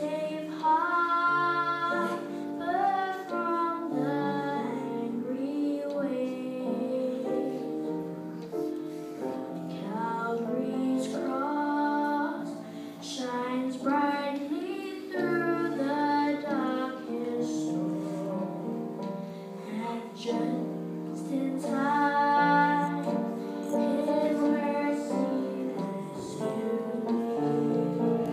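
A child singing a solo melody into a handheld microphone, over steady instrumental accompaniment.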